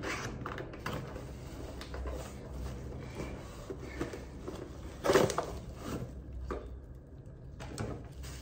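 Handling noise from unpacking a rechargeable phone ring light: scattered clicks, taps and rustles of its parts and packaging, with the loudest knock about five seconds in.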